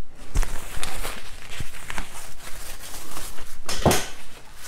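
Handling noise: a fabric drawstring gym bag being rustled and moved about, with scattered knocks and bumps and one louder knock a little before the end.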